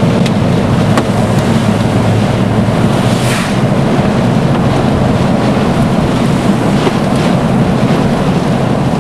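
Loud, steady roar of the violent EF-5 tornado's winds mixed with wind and rain noise, heard from inside a moving vehicle. A gust of hiss swells about three seconds in, and a couple of faint ticks sound near the start.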